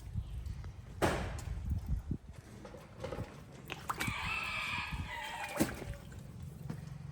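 A rooster crowing once, a wavering call of under two seconds about four seconds in. There is a sharp knock about a second in.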